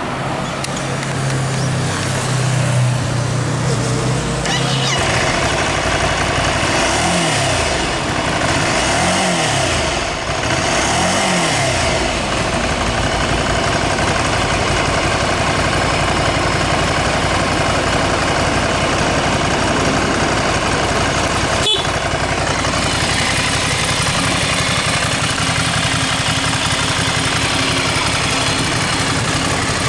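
Ducati Scrambler Sixty2's air-cooled L-twin running through its stock exhaust. It idles, is blipped three times about seven, nine and eleven seconds in, each rev rising and falling back, and then settles into a steady idle.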